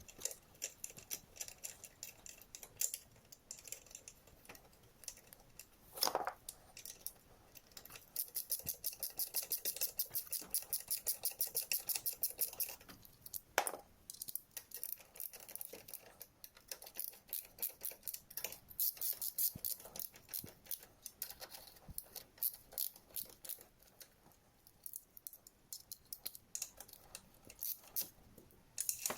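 Ratchet wrench clicking in quick, even runs while engine fasteners are turned, with scattered metallic clinks and two louder knocks of parts or tools, about six seconds in and about thirteen and a half seconds in.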